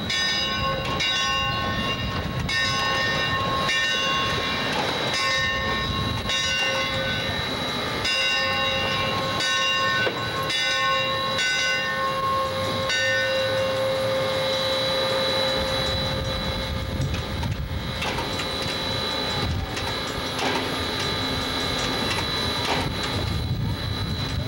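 Steam locomotive No. 2248 rolling slowly past with the low rumble of its running gear, under a ringing that repeats about once a second and dies away a little past halfway: the locomotive's bell.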